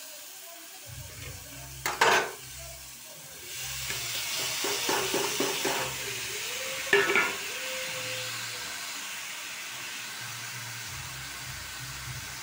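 Chopped green keliyan beans sizzling in hot oil and masala in a kadhai as they are tipped in from a steel plate; the sizzle swells about three and a half seconds in and then runs steadily. Two sharp clanks of metal, about two seconds in and again around seven seconds, stand out as the loudest sounds.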